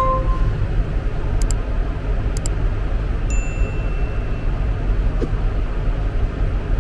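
Tractor engine running steadily, a low rumble heard inside the cab, with a couple of light clicks and a short high electronic beep about three seconds in.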